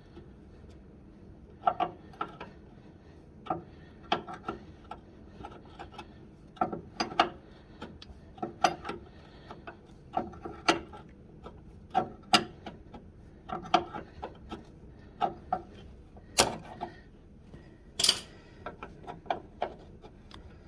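Ratchet clicking in short bursts, about once a second, as a brake line nut is worked loose with a claw spanner. Two louder, sharper clicks come near the end.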